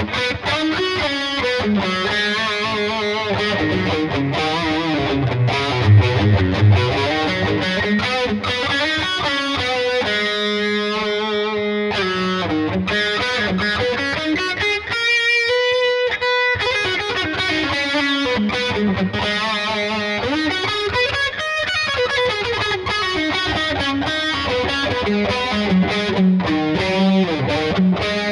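Gibson SG Standard electric guitar played through a distorted tone: a lead solo of fast runs and held notes with string bends and vibrato.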